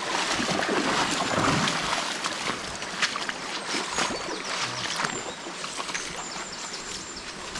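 River water rushing and splashing over rocks, with many small sharp splashes and knocks through it.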